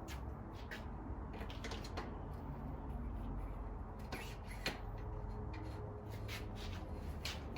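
Irregular light clicks and handling knocks over a low steady hum.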